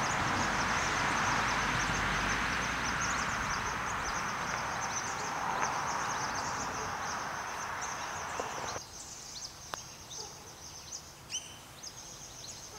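Steady outdoor noise that stops abruptly about two-thirds of the way through, over a constant high chirping of birds or insects; a single sharp click comes shortly after the noise stops.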